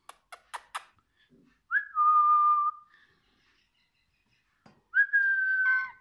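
Four quick clicks in the first second, then two steady whistled notes about a second long each, the second a little higher, each opening with a short slide in pitch.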